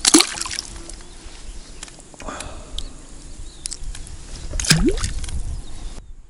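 Water splashing and sloshing as a small caught fish is dropped into a keepnet in the lake, with a loud splash right at the start and a second splash about five seconds in, and small drips and handling clicks between.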